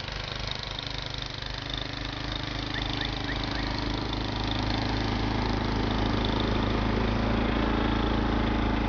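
Engine of a snow-clearing machine running steadily, growing louder over the first few seconds and then holding.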